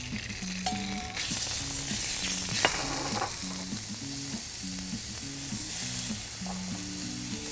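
Chopped chicken and shrimp sizzling as they hit a hot Neff teppanyaki griddle plate. The sizzle swells about a second in and keeps on steadily, with one sharp click a little later.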